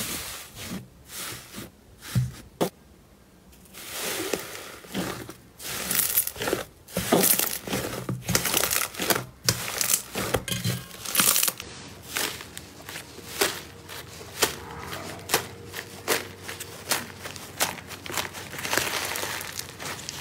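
Slime being squeezed, stretched and kneaded by hand, giving a stream of squishy clicks and crackling pops. Sparse for the first few seconds, then dense, and the sound changes about halfway through as a different slime is handled.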